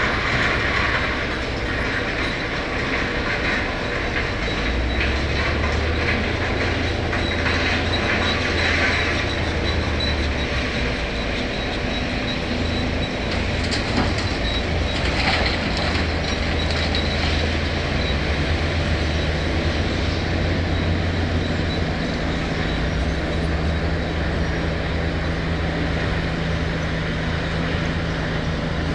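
Heavy earthmoving machinery working: a large diesel engine running steadily under load, with metallic rattling and a thin high whine. The engine note gets stronger about five seconds in, and there is a single sharp clank about halfway through.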